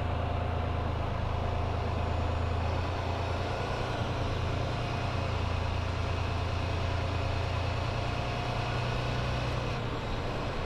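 Semi-truck diesel engine running at low, steady revs, a deep drone that eases slightly near the end.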